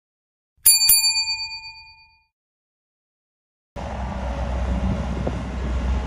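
A bell-like ding struck twice in quick succession, ringing out and dying away over about a second and a half. A steady machine rumble then starts abruptly a little past halfway.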